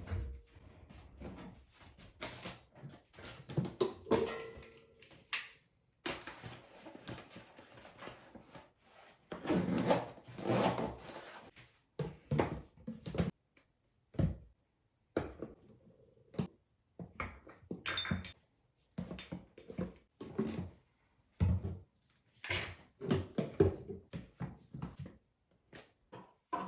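Household handling noises: a string of irregular knocks, taps, clatters and rustles as things are picked up, moved and set down, with abrupt cuts between short stretches.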